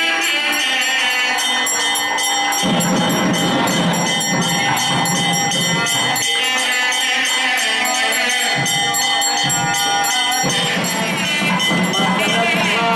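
Devotional temple music with a fast, steady jingling of bells throughout and a melody line over it, the kind of sound that goes with an arati lamp offering.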